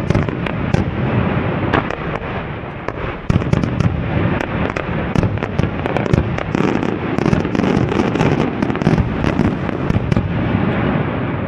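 Fireworks going off in a dense, continuous barrage: many overlapping booms with sharp cracks and crackling.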